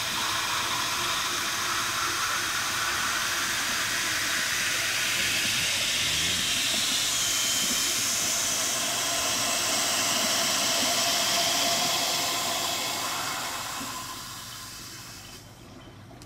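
Water flowing through the drain of a fire-sprinkler deluge valve while the drain valve is slowly closed. The flow is steady at first, then dies away over the last few seconds as the drain shuts. It is closed slowly to avoid water hammer while the valve's pressure equalizes.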